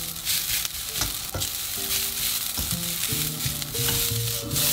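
Rice sizzling in a hot wok, stirred with a spatula and tossed, with a few sharp scrapes and knocks of the spatula against the wok.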